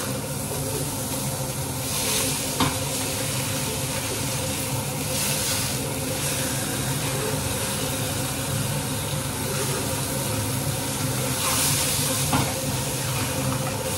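Fish frying in a pan with oil: a steady sizzle and hiss, swelling louder three times, over a steady low hum.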